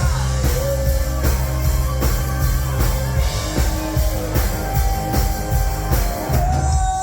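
Rock music with a singer, drums and guitar, playing loudly to a steady beat.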